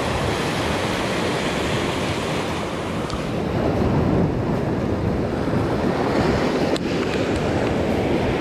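Sea swell surging and breaking against shoreline rocks, a continuous rushing wash of surf, with wind buffeting the microphone.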